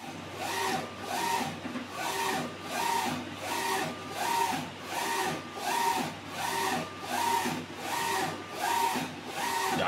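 Print-head carriage of an F2-6090/I1600 flatbed UV printer shuttling back and forth across the bed while printing. Its drive motor whines up and down with each pass, a little more than one pass a second, over a steady low hum.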